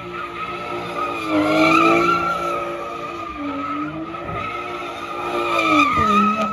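A car doing donuts: the engine is held at high revs, rising and falling, while the rear tyres squeal without a break. It is loudest about two seconds in and again near the end, where the revs drop sharply.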